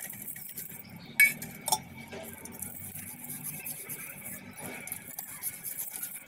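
Copper vessels clinking as they are handled: a sharp metallic clink about a second in and a lighter one half a second later, with soft rubbing of a cut lemon on copper.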